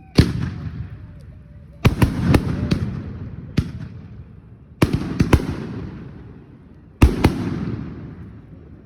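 Fireworks bursting: four loud booms about two seconds apart, several followed by two or three quick sharp cracks, each trailing off in a long rumble.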